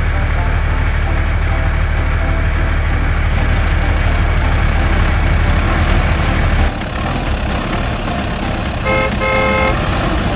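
Heavy, steady vehicle engine rumble that drops off about two-thirds through, then two short horn toots near the end, the second a little longer.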